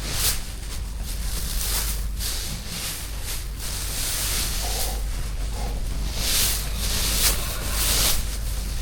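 Dry straw bedding rustling and swishing as it is shaken out and spread, in a run of separate rustles, with a low rumble of wind on the microphone.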